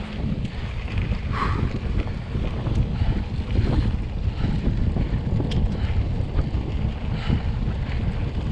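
Wind buffeting the microphone of a camera on a moving mountain bike: a loud, uneven low rumble, with a few faint clicks.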